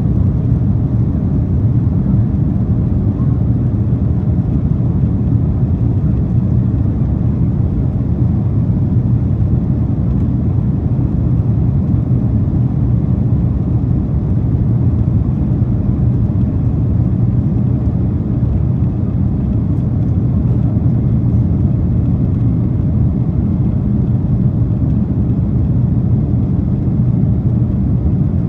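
Boeing 767-400ER cabin noise during the climb after takeoff: a steady, loud, low rumble of jet engines and airflow, heard from inside the cabin.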